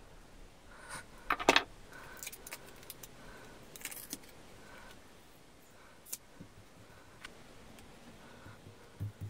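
Small metal tool set down on a wooden workbench with a brief metallic clatter about a second and a half in. Lighter clicks and scrapes follow as a steel ruler and a paper template are shifted on the resin clock blank, with a few soft taps near the end.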